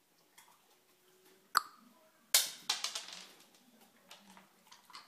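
Wooden kitchen cabinet door pushed shut by a dog: a sharp click about one and a half seconds in, then a loud bang as the door shuts, followed by about a second of rattling and smaller knocks.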